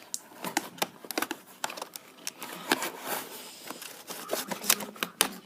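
Close handling noise: a rapid, irregular run of plastic clicks, taps and light rustles as something is fiddled with and repositioned.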